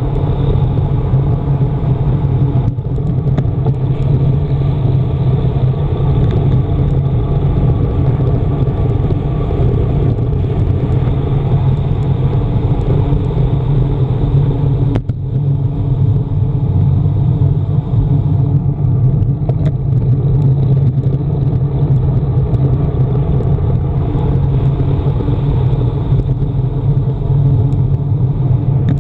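Steady, loud rush of wind on the microphone, with tyre noise from a road bike descending at speed, picked up by a camera on the handlebars. There is a brief dip about halfway through.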